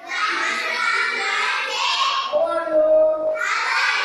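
A group of children's voices chanting in unison, a sing-song chorus with a long held note in the middle.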